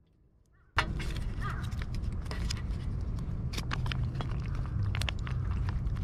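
Cats eating cat food close to the microphone: irregular crunching clicks over a low rumble, starting abruptly under a second in.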